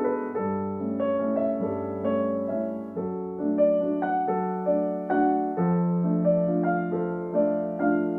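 Background music: gentle piano, note changes about every half second over a steady bass.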